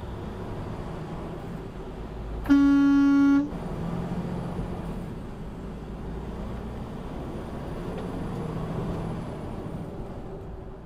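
A loud horn blast, one steady note held for about a second, about two and a half seconds in, over the steady road and engine noise of a semi-truck driving on the highway.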